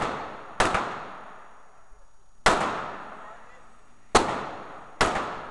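A 9mm pistol fired four times at uneven intervals, each shot a sharp crack followed by a ringing echo off the indoor range's walls. The tail of a shot fired just before fades out at the start.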